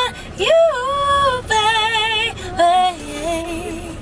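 A woman singing unaccompanied, with long held notes and wide vibrato. One note swoops up about half a second in, and the last phrase, from about three seconds in, is lower and softer.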